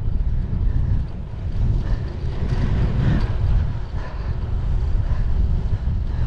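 Wind rumbling and buffeting on the microphone while riding a bicycle at speed, an unsteady low rumble.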